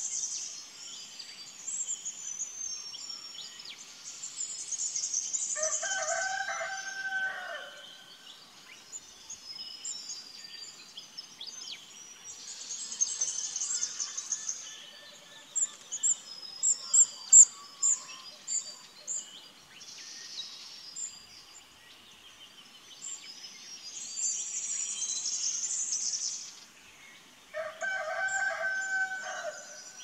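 Morning chorus of small songbirds, high chirps and trills throughout, with a run of sharp, loud chirps about halfway through. A rooster crows twice, about six seconds in and again near the end.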